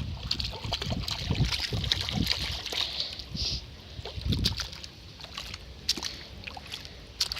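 Shallow floodwater splashing and sloshing as it is stirred and pushed about, busiest in the first four seconds, then thinning to scattered splashes.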